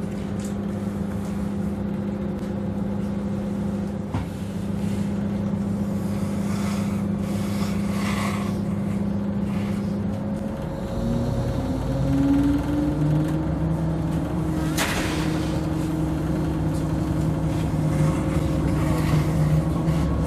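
Diesel engine of a DB class 646 (Stadler GTW) railcar running steadily at idle, then revving up with a rising tone about halfway through as the train pulls away, and holding at the higher pitch. A single sharp click a few seconds after the engine speeds up.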